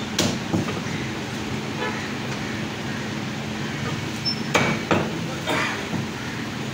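Heavy meat cleaver chopping lamb on a wooden chopping block: a chop just after the start, then a quick run of three or four chops a little past the middle. The chops sit over a steady background hum.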